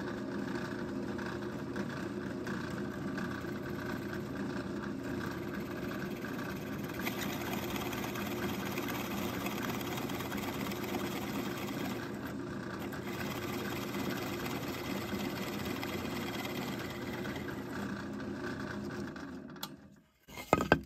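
Bench drill press running steadily while a freshly filed spade bit bores into a wooden block. The motor winds down and stops near the end.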